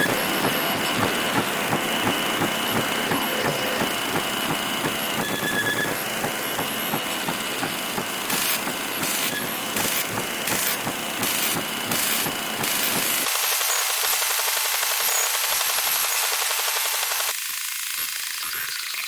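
Harsh static noise of a television with a poor signal, loud and unbroken. Midway the hiss pulses on and off about twice a second, and near the end the sound turns thinner in two sudden steps as the low end drops away.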